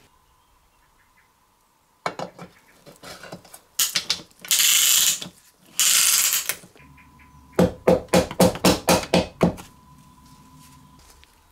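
Piston and band-type ring compressor being worked onto a small Briggs & Stratton engine's aluminium cylinder. Metal clicks and scrapes come first, then a loud hissing rasp twice, about a second each, then a quick run of about ten taps as the piston is driven down through the compressor into the bore.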